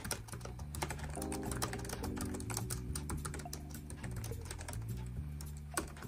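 Fast touch-typing on a 2008 MacBook's keyboard: a rapid, uneven stream of key clicks. Soft background music with steady held notes comes in about a second in.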